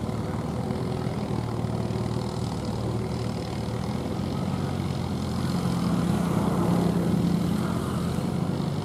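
John Deere tractor's diesel engine running steadily under load while it drives a rotavator puddling a flooded paddy field. It grows louder for a couple of seconds past the middle.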